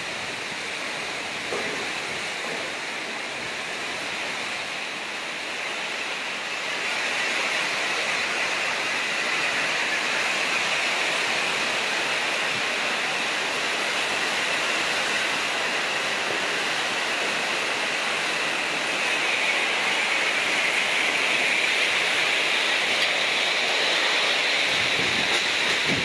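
Heavy rain and strong storm wind, a steady rushing noise that grows louder about seven seconds in.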